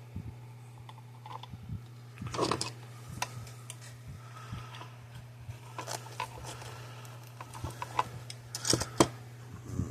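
Scattered small clicks and rustles of hand tools and wires being handled during bench wiring work, with a few sharper clicks near the end, over a steady low hum.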